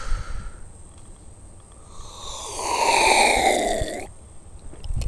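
A person drinking from a small bottle, the liquid gurgling in a pitch that falls for about two seconds and then stops sharply.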